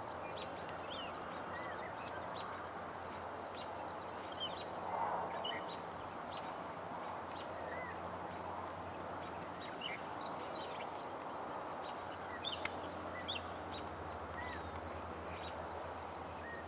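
Insects chirping in a steady, evenly pulsed trill, with scattered short bird chirps over a steady outdoor hiss.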